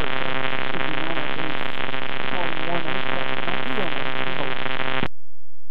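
Aircraft radio transmission coming through the headset feed: a steady buzzing drone with a faint, garbled voice wavering under it. It cuts off with a click about five seconds in as the transmission ends.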